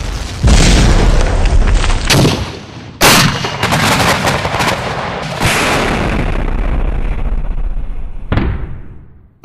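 A series of loud staged explosion and gunfire sound effects: about five sudden blasts a second or two apart, each trailing off in a rumble, the last one near the end fading out.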